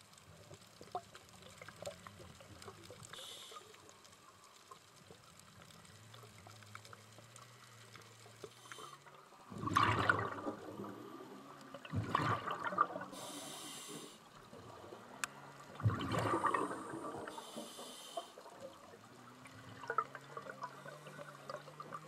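Scuba regulator breathing underwater: short hissing inhalations and loud bubbling exhalations every few seconds, the bubbling strongest from about halfway in, over a faint steady low hum.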